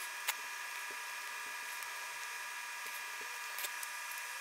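Faint ticks and scrapes of a pointed stick dabbing solder paste onto circuit board pads, with one sharp click about a third of a second in, over a steady high hiss with a faint whine; the footage is sped up.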